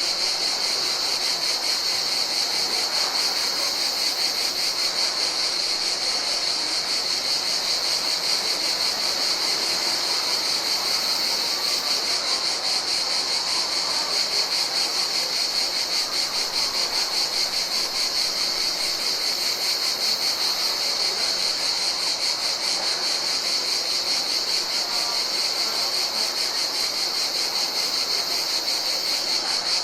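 Chorus of summer insects trilling without a break: a dense, fast-pulsing, high-pitched buzz that stays on one pitch and level, over a faint background hiss.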